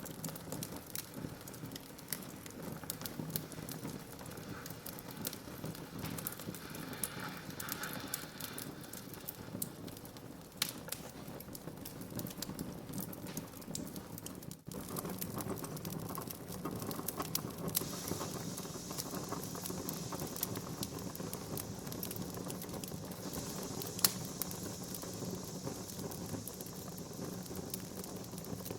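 Wood fire burning in a fireplace, crackling and popping steadily over a soft hiss, with one louder pop late on.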